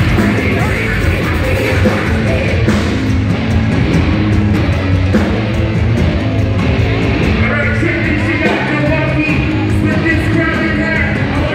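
Live metalcore band playing loud: distorted electric guitars, bass and drums, with the vocalist singing into his microphone.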